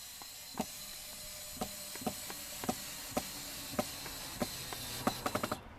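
Cordless drill running steadily, a high hiss with a faint constant whine, with light clicks and knocks about every half second and a quick run of them near the end. The sound cuts off abruptly just before the end.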